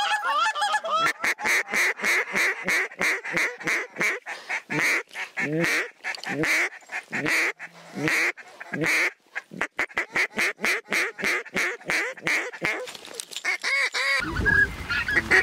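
Goose call blown by a hunter: a long run of short honks and clucks, each note breaking sharply from low to high, about three a second, with a brief pause about nine seconds in and then a quicker string of clucks.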